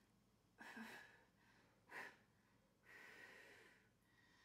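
A person blowing out breath in three quiet puffs, the last one the longest: breath blown out as in the color breath technique of blowing on wet paint to spread it across paper.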